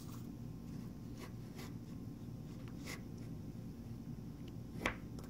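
Faint scraping and a few light clicks as a snug, sanded hardwood dowel is pushed into a carbon fiber landing-gear tube, with one sharper tap near the end, over a low steady hum.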